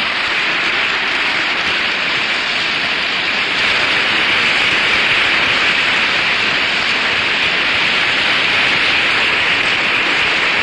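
A large auditorium audience applauding, a dense, steady clapping that holds at full strength.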